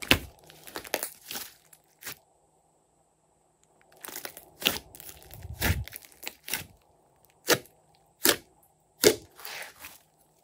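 Hands squeezing, stretching and folding glossy slime, with wet popping and crackling as trapped air bursts out. The sounds come in irregular bursts, with a quiet pause of over a second early on and three sharp single pops about a second apart near the end.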